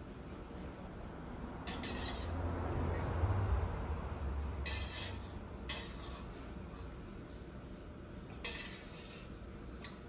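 Metal spoon stirring and scraping around a small metal saucepan, in short bursts about two seconds in, around five seconds, and near nine seconds. A low rumble runs under it between about two and five seconds.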